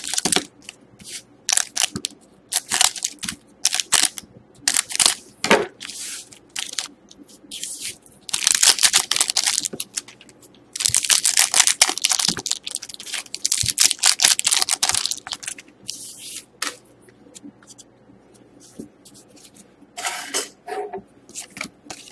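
Foil wrappers of Rookie Anthology hockey card packs crinkling and being torn open by hand, in a run of short crackly rustles. Two longer stretches of crackling come about eight and eleven seconds in.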